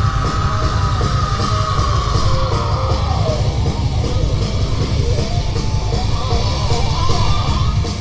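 Heavy metal band playing live on stage: distorted electric guitars, bass and drums at full volume.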